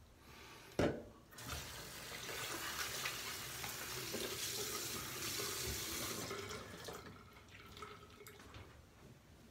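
A single thump, then water running from a tap into a sink for about five and a half seconds, which stops about seven seconds in.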